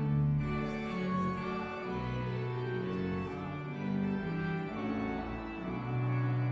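Church organ playing slow, held chords.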